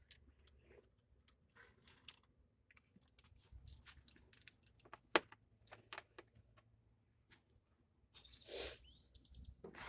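Light metallic clicks, clinks and rattles of hand tools and small parts being handled on a golf cart engine during carburetor removal, with one sharp clink about five seconds in.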